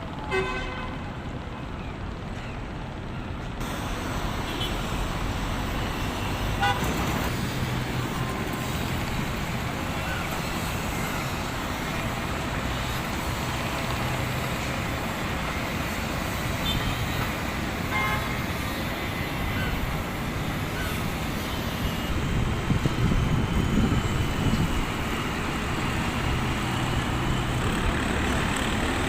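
Steady motor-vehicle traffic noise with a few short horn toots now and then.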